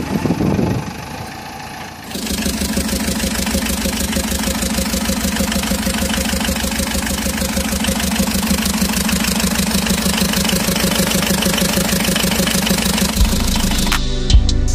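Recorded engine-idling sound, a steady rhythmic engine idle that cuts in abruptly about two seconds in; music takes over near the end.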